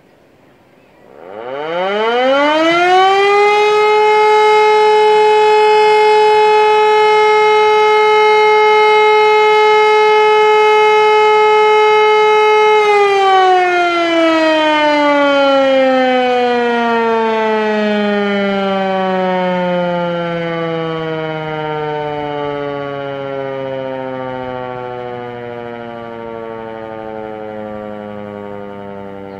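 Hörmann E57 electromechanical civil-defence siren sounding its test signal. It winds up quickly about a second in and holds one steady tone for about twelve seconds. It then falls slowly in pitch and loudness as the rotor runs down, still sounding at the end.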